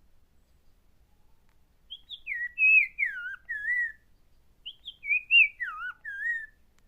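A bird whistling a short warbling phrase of gliding notes, then repeating nearly the same phrase a second later.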